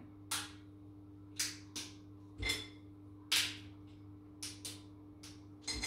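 About nine light, irregularly spaced clinks and knocks inside a stainless steel pot, as chocolate and butter pieces are put in and broken up with a spoon. A steady low hum runs underneath.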